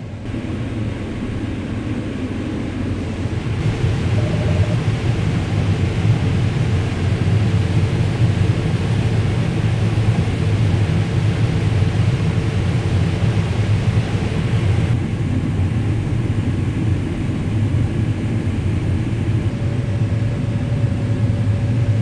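Heavy farm machinery running at harvest: a steady, loud low engine drone. A rushing noise rides on top from about four seconds in and drops away near fifteen seconds.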